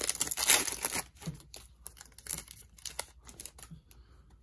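Foil trading-card pack crinkling and tearing open, loudest in the first second, then fainter crinkles and clicks as the cards are handled.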